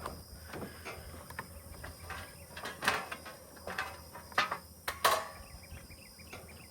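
Scattered clanks and knocks of scrap metal, aluminum pans and other pieces, being picked through and set down by hand. The loudest knocks come about three seconds in and again about five seconds in.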